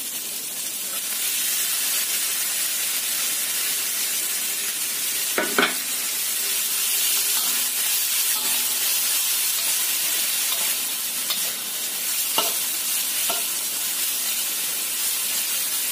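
Bean sprouts and sliced onion sizzling in a hot oiled wok while a metal spatula stirs and tosses them. A few sharp clanks of the spatula against the wok come about five and a half seconds in and twice near the end.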